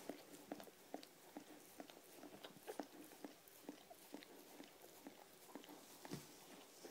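Mother dog licking and nibbling at her newborn puppy: faint, irregular wet clicks and smacks, several a second.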